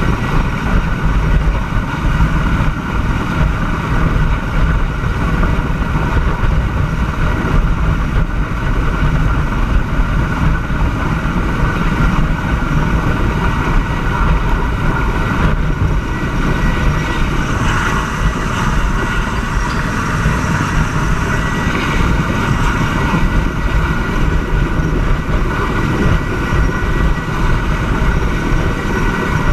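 Helicopter hovering close overhead: a steady turbine whine and rotor noise, with heavy low wind rumble on the microphone.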